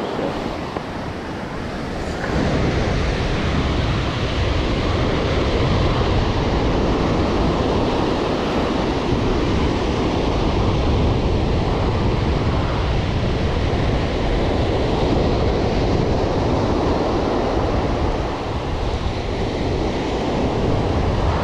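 Ocean surf breaking and washing up the beach in a steady rush, with wind buffeting the microphone, a little louder from about two seconds in.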